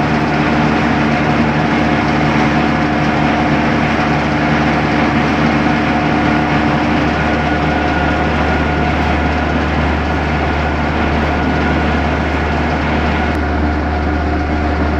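Tire recycling line running: a JLRS1500 rubber rasper grinding shredded tires into rubber mulch, together with its vibrating screen, making a loud, steady mechanical drone with a low hum and several steady tones.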